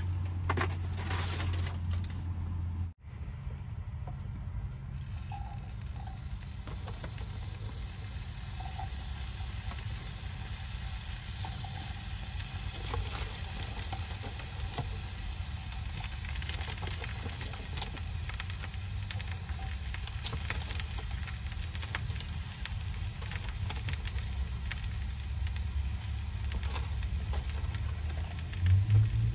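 Sliced mushrooms sizzling faintly in a frying pan over a steady low hum, the crackle starting after about three seconds.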